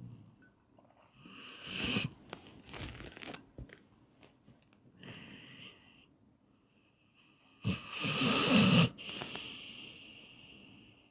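A person snoring: a snore that builds to a peak about two seconds in and a louder one about eight seconds in, each followed by a softer, breathy breath out.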